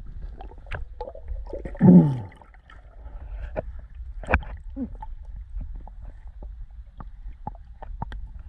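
Underwater sound with a steady low rumble and scattered sharp clicks and ticks. About two seconds in comes a loud bubbling gurgle that falls in pitch.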